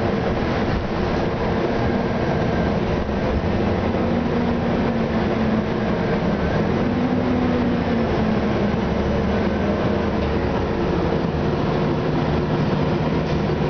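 Orion VII city bus with a Detroit Diesel Series 50 inline-four diesel and Allison B400R automatic transmission, heard from inside the cabin while driving. A steady engine and driveline hum mixes with road noise; its pitch rises and dips a little around the middle, then settles lower near the end.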